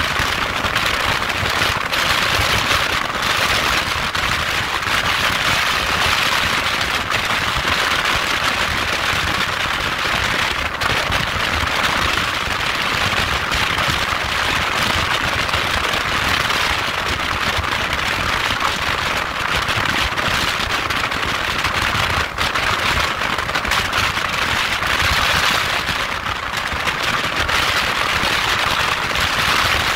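Wind rushing and buffeting over the microphone of a motorcycle at highway speed, a constant crackling hiss with road and engine rumble beneath it.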